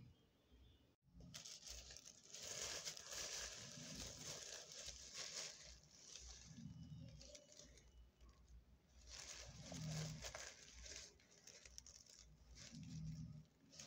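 Faint crinkling of a thin plastic bag, in several bursts, as a chicken burger is handled and pulled apart on it.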